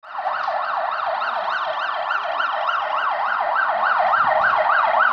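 Emergency vehicle siren on a fast up-and-down wail, about three to four sweeps a second, growing gradually louder.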